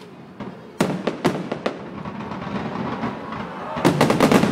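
Aerial fireworks of a display finale exploding: several separate sharp bangs in the first two seconds, a growing rumble, then a rapid barrage of overlapping bangs near the end as the finale builds.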